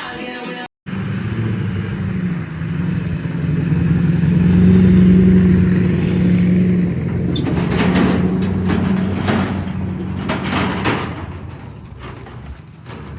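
A vehicle engine running steadily, growing louder and then fading away, with several clattering knocks in the middle.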